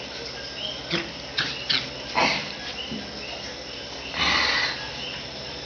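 Small white dog making short snuffling, huffing puffs as it plays on a rug, with a longer breathy rush of noise about four seconds in.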